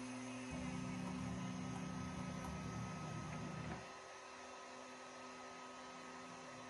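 Low, steady electrical hum with a few steady tones in it; a deeper layer of the hum stops about four seconds in, leaving a fainter hum.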